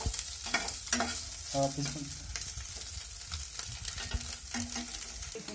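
Metal spatula scraping and stirring fried soya chunks around a nonstick kadhai, with hot oil sizzling underneath. The scrapes and knocks come thickest in the first couple of seconds, then the stirring eases.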